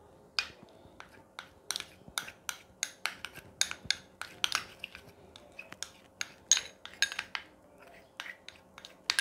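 Metal spoon clinking and scraping against a small clear bowl while stirring a thick paste of toothpaste and petroleum jelly. The clinks are quick and irregular, a few a second, starting about half a second in.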